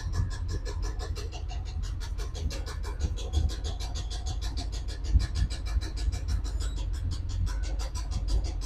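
Worn-out engine of a 1979 GMC C30 truck running with a fast, even knock over a low rumble; the knock is the sign of a failing engine that is due to be replaced.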